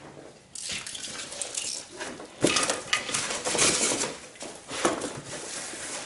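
Cardboard box being opened by hand and white foam packing strips pulled out: irregular rustling and scraping of cardboard flaps and foam, with a couple of sharp knocks, about two and a half and five seconds in.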